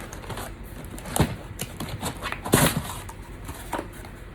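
A propane regulator and its packaging being unwrapped and handled: scattered rustles and a few sharp knocks of hard parts, the loudest about two and a half seconds in.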